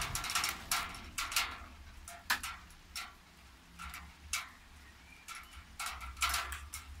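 Light rain: single raindrops tapping irregularly on a hard surface, sharp taps coming singly and in quick clusters.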